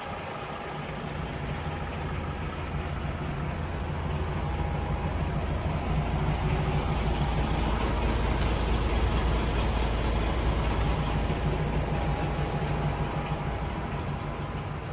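DAF XF480's PACCAR MX-13 six-cylinder diesel idling steadily. It grows louder around the middle and fades again toward the end.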